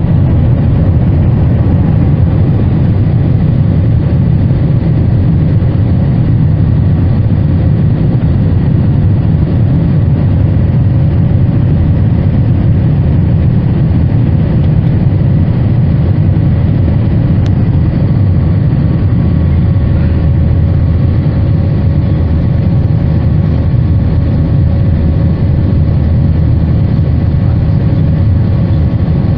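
Airbus A321-231 cabin noise during climb-out after takeoff: its IAE V2500 turbofans and the airflow make a loud, steady low rumble, with faint steady tones above it.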